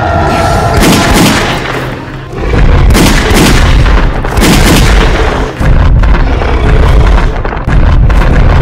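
Film soundtrack of dramatic music with a series of loud booming blasts, four or so in the first five seconds, over a continuous deep rumble.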